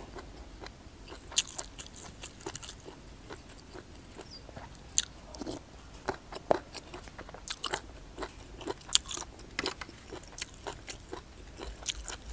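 A person chewing hed phaw (barometer earthstar mushrooms, Astraeus) from a curry close to the microphone, with irregular crisp crunches as their tough skins are bitten through.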